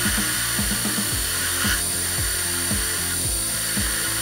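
Metal lathe turning a round metal bar with a carbide-insert cutting tool, mixed with background music that has a steady beat of about three thumps a second.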